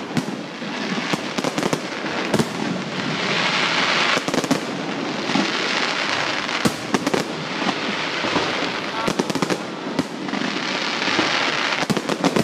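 Fireworks display: repeated sharp bangs and crackles, in clusters about two, four, seven and nine seconds in, over a constant rushing background.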